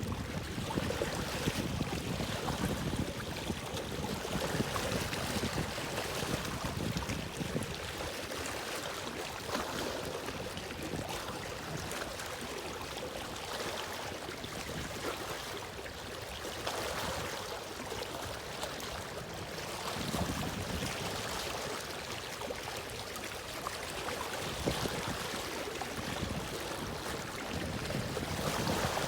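Steady wash of moving water with wind on the microphone. The low rumble of the wind is heavier for the first several seconds.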